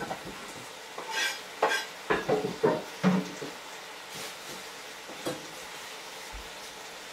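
Kitchen knife and wooden cutting board clattering on a stainless-steel sink counter: a couple of ringing metallic clinks, then several heavy knocks about two to three seconds in, and a few lighter taps after. Under it, a steady sizzle of chicken frying in a wok.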